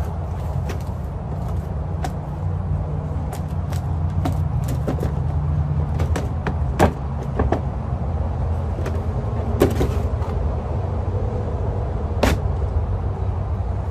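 Rigid ABS plastic mold being shaken and worked off a cured concrete bed block: scattered clicks, knocks and clatters of plastic on concrete, a few sharper knocks in the second half. A steady low rumble runs underneath.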